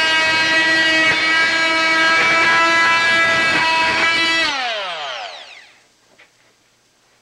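DeWalt DWE315 oscillating multi-tool running at a steady high pitch as its saw blade cuts through wood molding. About four and a half seconds in it is switched off, and its whine falls away over a second or so.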